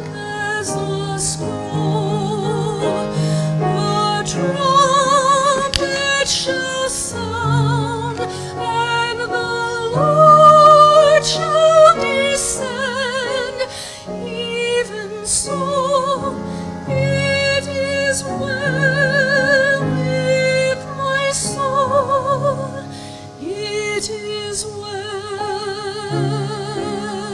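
A woman singing a solo with strong vibrato while accompanying herself on a grand piano.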